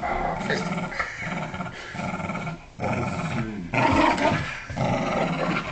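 Dog growling in play during a tug-of-war over a toy: a string of long, rough growls broken by short pauses.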